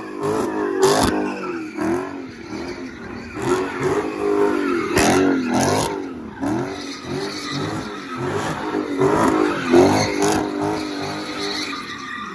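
Straight-piped Dodge Charger 392's 6.4-litre HEMI V8 revving up and falling back over and over while doing donuts, with the rear tyres spinning and squealing on the pavement. A few sharp cracks stand out among the revs.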